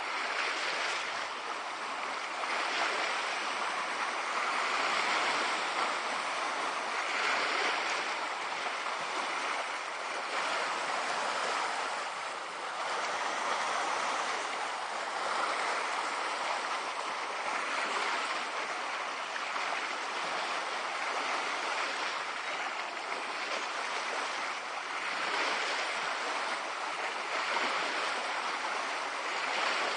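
Small lake waves lapping and breaking over a rocky shoreline, a steady wash of water that swells and eases every couple of seconds.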